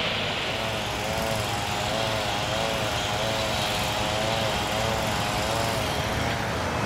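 A small engine running steadily, its note wavering up and down about twice a second, over a low hum of machinery.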